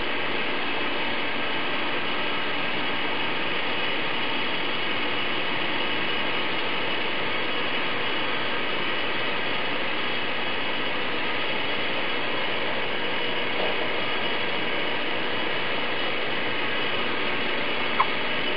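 Towing-tank carriage running steadily along its rails while it pulls a rowing shell through the water: an even mechanical noise with no change in pitch. There is a brief click near the end.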